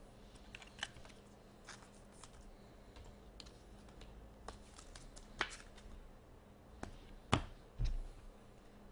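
Light, scattered clicks and taps of trading cards and a clear plastic card sleeve being handled at a desk, with a sharper click and a soft thud near the end as something is set down.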